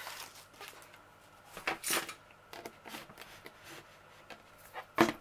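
Protective sheet being peeled off a lap desk's laminated top, giving a few short rustles with pauses between. A sharp click comes near the end.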